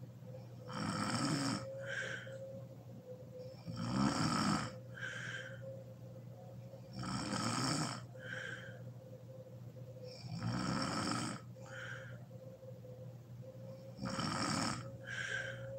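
A sleeping woman snoring heavily in a steady rhythm: five loud snores about three and a half seconds apart, each followed by a shorter, fainter breath sound, over a faint steady hum.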